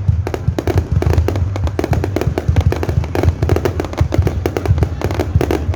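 Fireworks going off in a dense barrage: rapid, overlapping bangs and crackling over a continuous low rumble.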